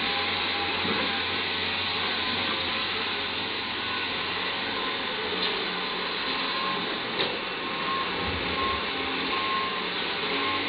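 CAT 320D hydraulic excavator running steadily while it digs loose coal with its bucket, with one sharp knock about seven seconds in.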